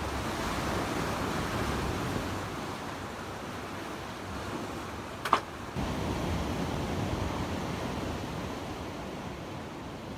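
Ocean surf washing over rocks in two swells that build and ease off, with one sharp click about five seconds in.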